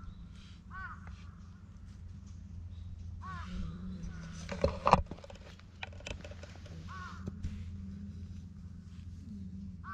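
A crow cawing: short single calls spaced a few seconds apart, four in all. A loud sharp knock comes about halfway through.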